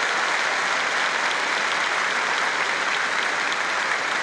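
Large arena crowd applauding steadily as the referees' red flags go up to award a point.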